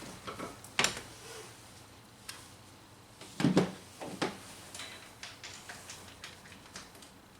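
Hand tools and metal parts being handled while a spark plug is removed: a few sharp clicks and knocks, the loudest about three and a half seconds in, then lighter ticks.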